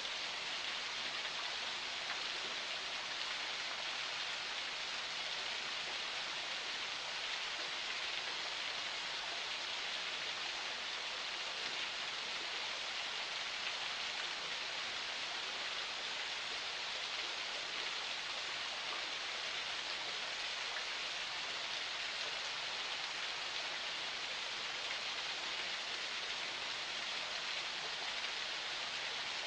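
Forest spring flowing: a steady, even hiss of running water with no breaks or changes.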